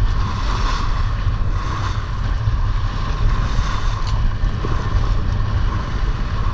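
Wind buffeting the microphone over the rush of water along the hull of a small trailer-sailer yacht sailing at speed.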